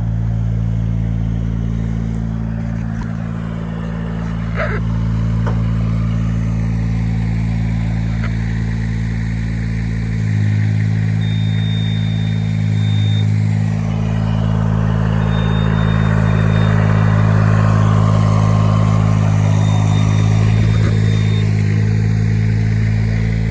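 Spider lift's engine running at a steady speed, growing a little louder about ten seconds in. A faint high beep sounds three times in the second half, each about two seconds long.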